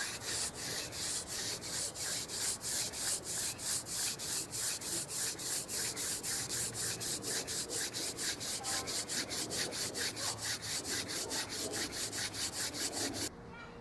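Hand-drill spindle of mule fat (seep willow) twisted back and forth between the palms in a yucca hearth board, wood rubbing on wood in a quick, even rhythm of strokes as the second hole is burned in; it stops near the end.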